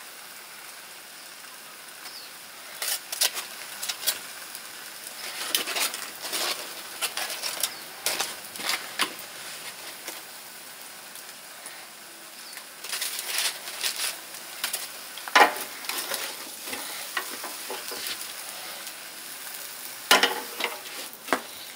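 Beef sizzling on a grill: a steady hiss with spells of crackling and popping fat, the loudest pop about two-thirds of the way through.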